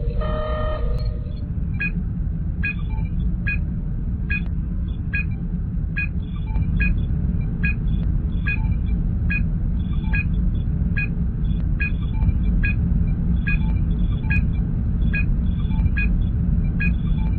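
Star Trek starship sound effects: a steady low engine hum under short electronic scanner pings that repeat about once every 0.8 s. A brief computer chirp sounds in the first second.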